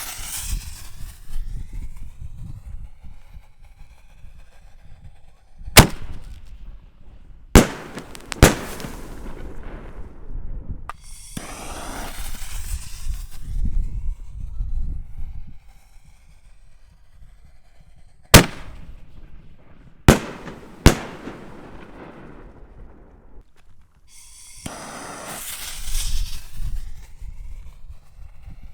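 Six-inch double-break aerial canister shells firing: each sequence is a sharp bang followed by two more bangs less than a second apart, which fits a lift charge and then the shell's two breaks. This happens twice, with long stretches of rushing, crackling noise from the shells' effects in between.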